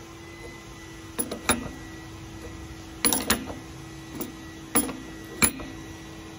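Adjustable wrench clicking against a brass fitting as it is set and turned on a water heater's outlet nipple: about seven sharp metallic clicks, spaced irregularly, over a steady low hum.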